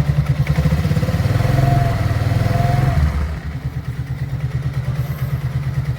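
Suzuki Access 125 scooter's single-cylinder engine running, rising in speed for a couple of seconds and then dropping back to idle about three seconds in. It runs smoothly, with the freshly replaced clutch pulley bearings no longer making their abnormal noise.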